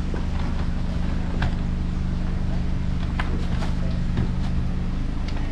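Car engine idling steadily with a low hum, while suitcases are lifted into the boot, with a few light knocks.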